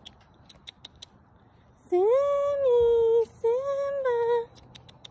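A woman calling a cat in a drawn-out, sing-song voice: two long calls about two seconds in, each rising and then falling in pitch.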